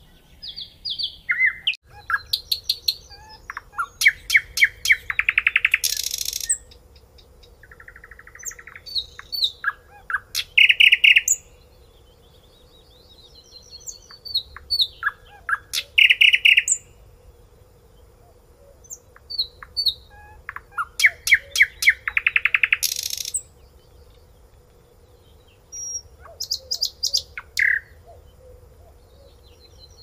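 Nightingale singing: about six loud phrases of a few seconds each, separated by short pauses. Each is built from varied whistles and rapid repeated notes, and most end in a fast run of notes.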